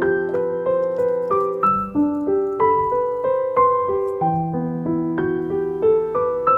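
Background piano music: a gentle melody of single notes, roughly three a second, over held low notes.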